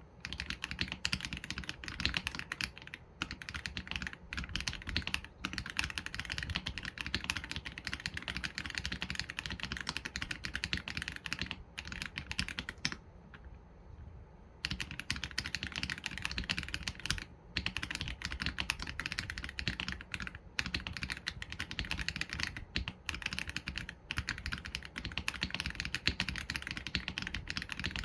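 Continuous typing on an AULA F87 Pro mechanical keyboard with Leobog Graywood V3 linear switches and PBT keycaps: a dense stream of keystrokes. There is a pause of about two seconds about halfway through.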